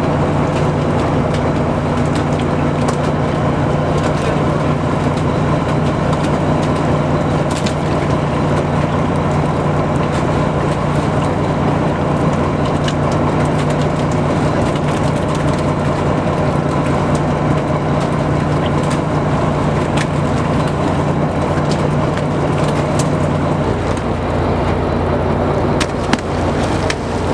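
A fishing boat's engine running steadily with a low, even hum that shifts in tone near the end. Scattered sharp knocks sound over it.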